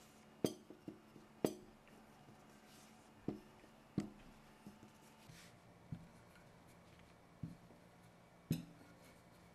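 Wooden rolling pin knocking lightly on a silicone baking mat as it is rolled over dough, set down and picked up, with about ten irregular sharp knocks spread through the quiet.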